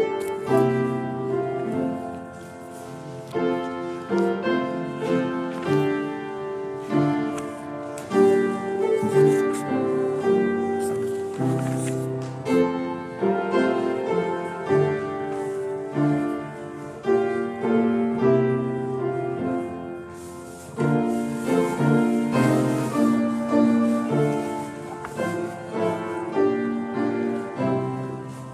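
Solo piano playing a slow offertory piece, chords and melody struck in a steady flow.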